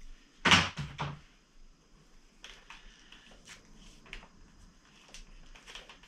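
Wiring loom tape pulled off the roll with a loud rip about half a second in, then quieter crinkling and small clicks as the tape is wound round a motorcycle's wiring harness.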